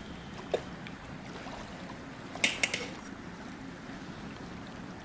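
A spoon stirring noodles in an electric kettle: a soft knock about half a second in, then a quick run of three or four sharp clinks about two and a half seconds in, over a low steady background noise.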